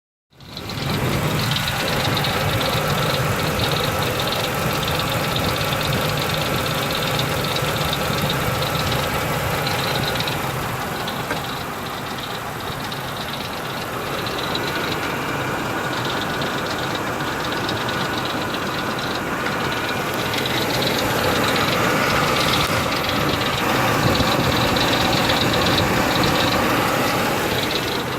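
2003 Ford Expedition's V8 engine running with a ticking sound, which the owner thinks may come from a pulley and hopes is not internal. It grows a little louder in the last third.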